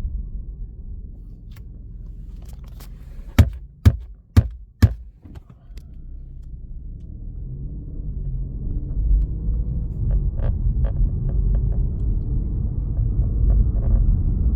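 Low road rumble inside an Alfa Romeo Giulia's cabin, with a quick run of four sharp clicks about three and a half seconds in and fainter irregular ticking as the rumble grows louder from about eight seconds on: a rattle from behind the dashboard.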